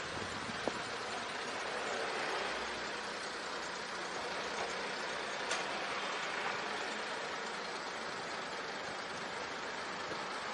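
Steady city road traffic around a bicycle, with a motor vehicle's engine humming nearby.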